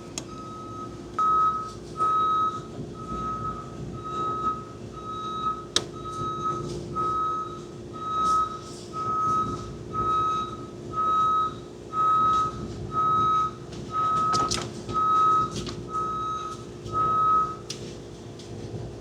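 An electronic warning beeper of the kind on reversing vehicles or shop lifts, sounding a steady single-pitch beep a little more than once a second, then stopping near the end. A steady low hum runs underneath.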